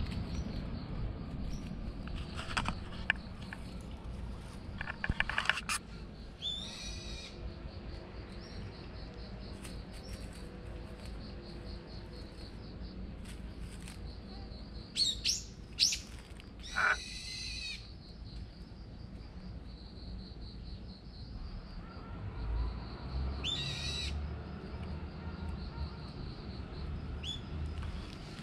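Birds calling in short, high-pitched bursts, about five times, over a steady background hiss. A few clicks come in the first six seconds, and a low rumble in the last few seconds.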